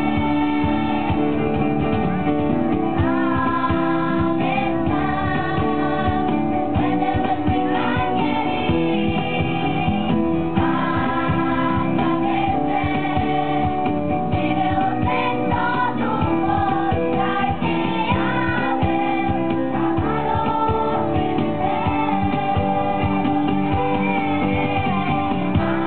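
Children's choir singing a song together, accompanied by acoustic guitar, amplified through a stage PA.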